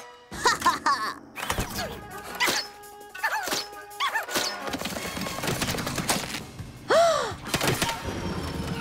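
Cartoon action background music with a series of thuds and short rising-and-falling squeaky cartoon sound effects, the loudest about seven seconds in.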